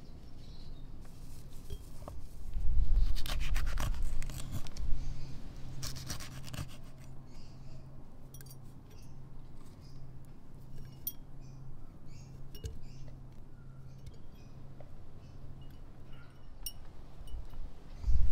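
Hands handling glass jars and lemon slices: soft rubbing and scraping with light clinks of glass, loudest a few seconds in, then quieter scattered small clicks.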